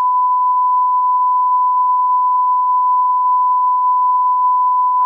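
Electronic test tone: one pure, steady beep at a single unchanging pitch, held for about five seconds and cutting off abruptly.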